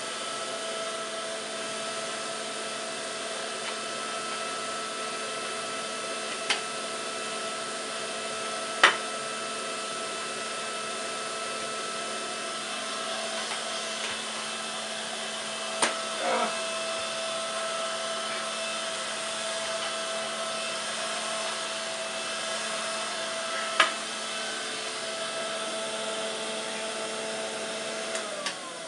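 A 1950s Vactric W404 cylinder vacuum cleaner running steadily with a whine over a hiss, its suction weak, which the owner puts down to the hose or the machine itself. A few sharp knocks come through it, and near the end it is switched off and the motor winds down, its pitch falling.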